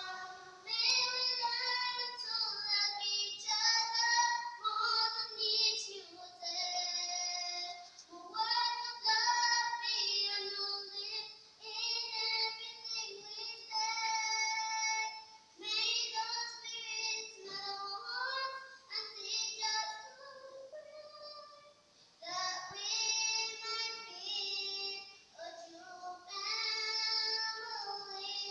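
Group of schoolgirls singing together in a series of sung phrases, with short pauses between phrases.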